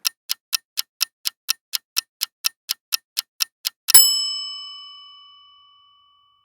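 Quiz countdown-timer sound effect: a clock ticking fast and evenly, about four ticks a second, then a bell ding just under four seconds in that rings and fades out over about two seconds as the time runs out.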